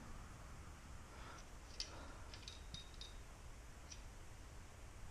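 Faint, sparse light clicks and taps over quiet room tone: a brake cable and a small wire hook being worked at a cable hole in a bicycle frame.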